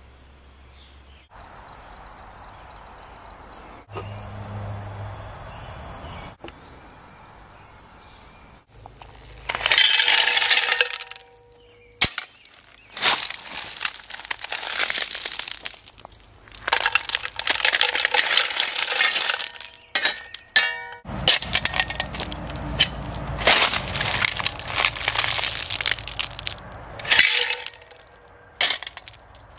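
Rounded stones clattering and crunching in a series of loud bursts with sharp clinks, as if being scooped or shifted in and around a small steel bucket. A quieter steady hum comes before the first burst.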